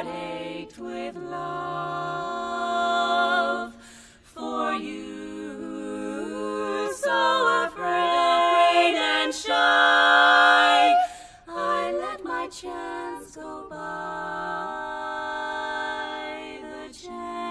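Women's barbershop quartet singing a cappella in four-part close harmony, sustained chords with short breaks about four and eleven seconds in, swelling loudest just before the second break.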